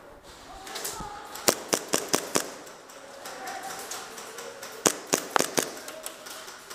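Airsoft guns firing: a quick string of five sharp cracks about a second and a half in, then four more around five seconds in.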